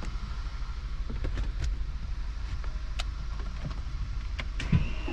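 2014 Volkswagen CC's 2.0-litre turbocharged four-cylinder running, a steady low rumble heard from inside the cabin, with scattered light clicks. Near the end comes a thump and a brief high tone.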